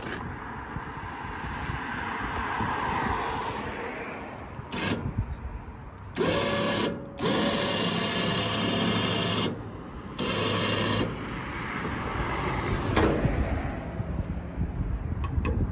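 Small electric hoist motor on a trailer-mounted mini crane running in three bursts partway through: a short one, a longer one of about two seconds, then another short one, each a steady hum that starts and stops sharply.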